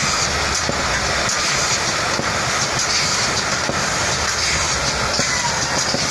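Automatic cartoning machine running: a steady, dense mechanical clatter with scattered clicks.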